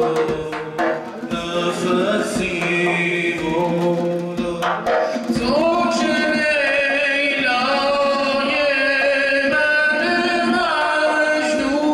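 A zurkhaneh morshed chants in long, wavering sung notes, marking time with occasional strokes on a zarb, the large clay goblet drum.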